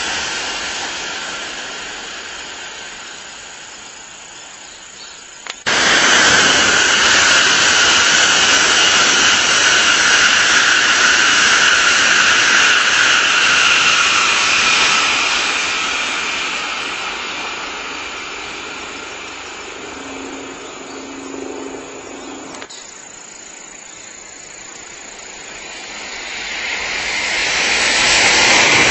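Tokaido Shinkansen high-speed trains passing at speed: a loud, steady rush of air and rail noise that swells and fades as each train goes by. The noise jumps up suddenly about six seconds in, dies away to a sudden drop near the end, then builds again as the next train arrives.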